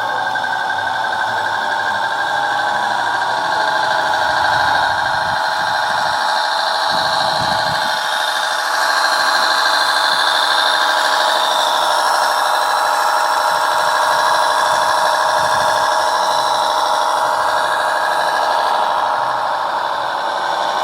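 Small electric motors and gearing of a radio-controlled model truck giving a steady high-pitched whine, its pitch shifting a little about halfway through as the load or speed changes.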